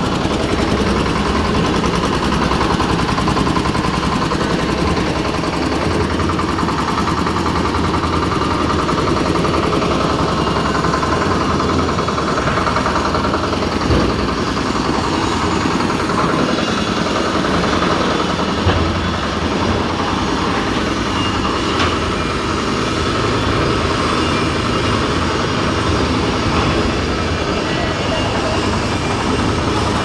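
Engine of a concrete mixer lift machine running steadily during a test run, with a few short knocks from the machine about halfway through.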